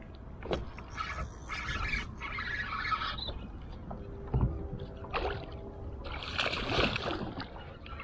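Water splashing and sloshing around a kayak, loudest about six and a half seconds in, with a sharp click near the start and a dull knock about four and a half seconds in.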